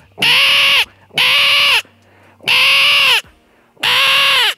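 A mouth-blown magpie distress call, blown with the call held in the teeth for a higher pitch, giving four harsh, raspy cries of under a second each. It imitates a magpie in distress. Each cry's pitch arches up and falls away at its end.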